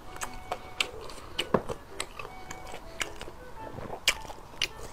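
Close-up eating sounds: wet chewing and sharp mouth clicks, with a spoon scraping and tapping in a glass bowl as rice is scooped up, over light background music.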